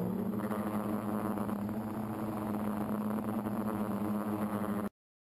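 Electric motors and propellers of a small RC aircraft buzzing steadily, heard from the camera on board, cutting off suddenly near the end.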